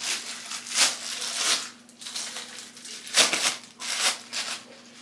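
Plastic bags or shower caps over freshly dyed hair crinkling and rustling in several short bursts as they are handled, over a faint steady hum.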